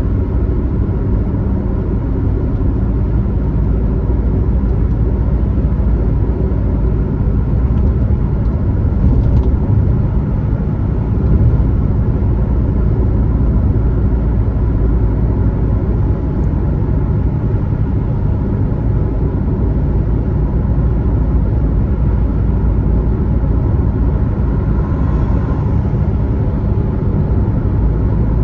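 Car driving at speed on a highway: a steady rumble of engine and tyre noise.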